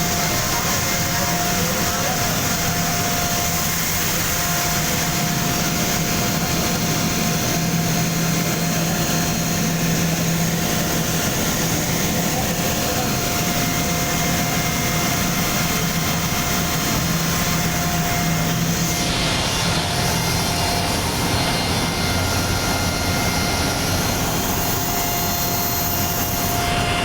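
Oil-free air compressor running steadily: a loud continuous hiss with a steady hum under it.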